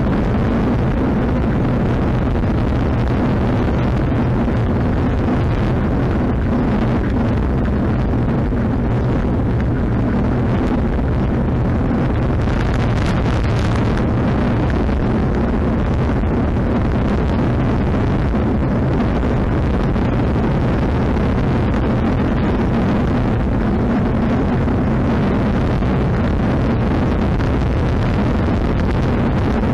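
Loud, steady wind rush and road rumble on a bicycle-mounted action camera's microphone while a road bike rides at speed.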